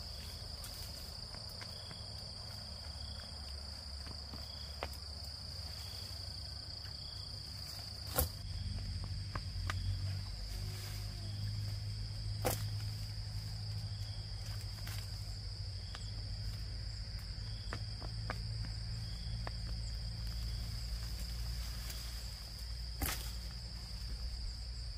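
Insects, crickets among them, trilling steadily on one high note, with a fainter chirp repeating below it. Under them runs a low rumble that grows louder about a third of the way in, and a few sharp knocks are heard.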